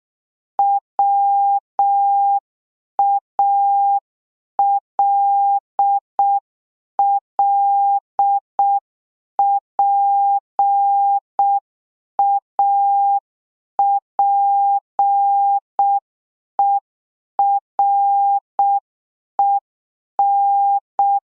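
Morse code practice tones: a single steady beep of about 800 Hz keyed on and off in short dots and longer dashes, spelling out a word letter by letter with gaps between the letters.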